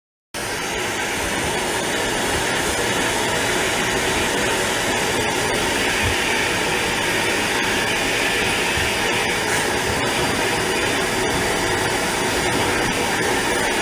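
Steady loud noise of a motor or rushing air, starting abruptly just after the start and holding level, with a few faint ticks.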